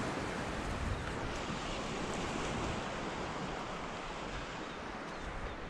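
Steady rush of wind and shallow saltwater, with wind buffeting the microphone.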